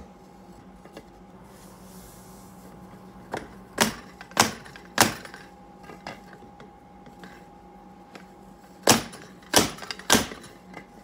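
Sharp knocks of a 1.5-inch ABS pipe, used as a seal driver, slammed down a motorcycle fork tube onto the new fork seal to drive it into the fork slider. There is a run of four knocks a few seconds in, then three more about five seconds later.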